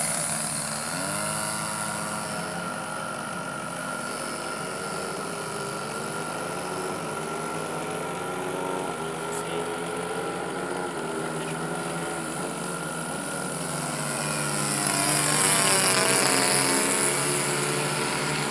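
Piston engine of a high-wing light aircraft in flight after takeoff. Its note sweeps up and down in pitch as the plane circles overhead, and it grows louder about three-quarters of the way through.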